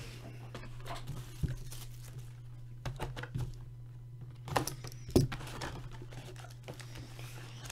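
Plastic shrink wrap being slit with a small knife and torn off a cardboard trading-card box, with crinkling and sharp knocks as the box is handled and its lid opened, loudest about five seconds in. A steady low hum runs underneath.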